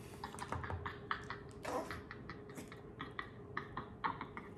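Putty slime being squished and stretched in the hands, making faint irregular clicks and pops.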